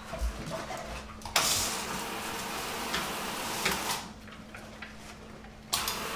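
Garden-hose spray nozzle spraying water onto a dog in a tiled shower stall, wetting its coat. The spray comes on suddenly about a second in, cuts back near the middle, and comes on again near the end.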